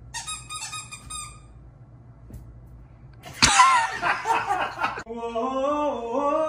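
A sharp knock, then about a second and a half of loud excited shouting and screaming from several people. About five seconds in, voices start singing a held chord in close harmony.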